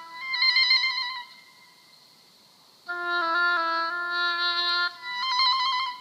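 Solo oboe improvising: a short, high, rapidly trilled phrase, a pause of over a second, a held lower note moving by small steps, then another high trilled figure.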